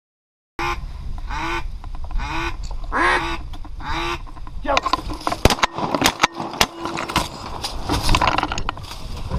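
Honking waterfowl calls: four calls about a second apart, then from about halfway a denser run of overlapping calls with a held note and several sharp knocks.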